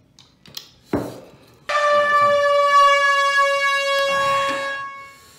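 A short knock about a second in, then one long, steady horn-like blast lasting about three seconds, fading at the end: an edited-in horn sound effect marking the challenge timer stopping at six minutes.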